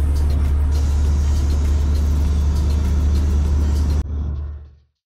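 Truck engine drone and road noise heard inside the cab while driving, steady and low; it drops sharply about four seconds in and fades out to silence.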